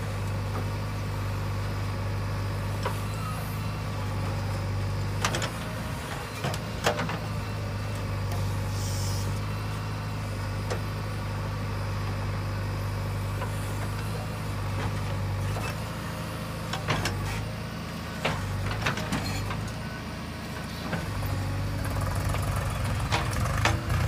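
JCB 3DX backhoe loader's diesel engine running steadily under load as the backhoe digs and swings soil. Several sharp clanks and knocks of the bucket and boom come through, two about five and seven seconds in and a few more past the middle.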